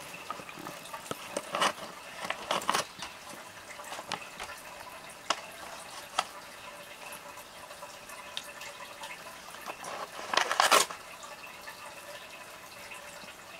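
A cat tearing and chewing paper, with sparse crinkles and wet clicks and the loudest burst of crinkling about ten and a half seconds in.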